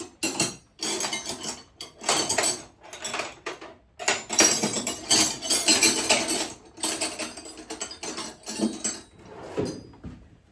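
Metal hand tools clinking and rattling against each other and against engine parts, a run of irregular clanks and scrapes with short pauses between them.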